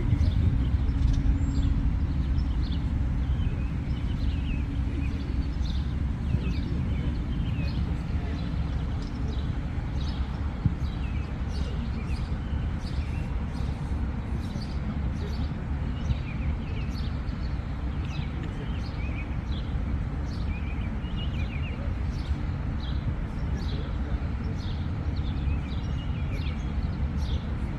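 Outdoor ambience: a steady low rumble with birds chirping throughout in short, repeated high calls.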